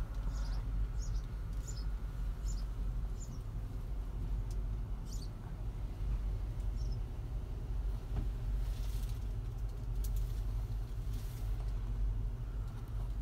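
Tracked carrier's 2.2-litre Perkins turbo diesel idling steadily, heard from inside the cab. A small bird chirps about half a dozen times in the first few seconds.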